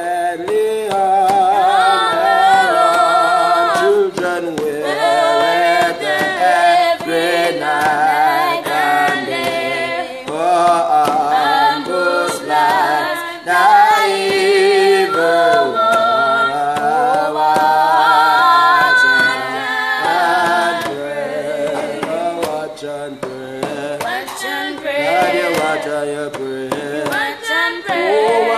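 Worshippers singing a worship song together, a woman's voice with a man's, in long held notes with a wavering pitch.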